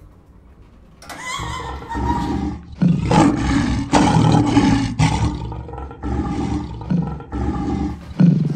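Monster roars from a terror-dog creature: a run of loud, rough roars one after another, starting about a second in.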